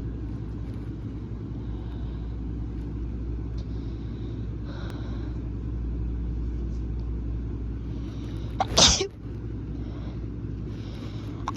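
A person sneezes once, forcefully and loudly, about nine seconds in, over a steady low rumble.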